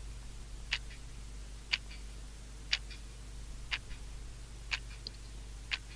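Clock ticking steadily, one tick a second, six ticks in all, over a low steady hum.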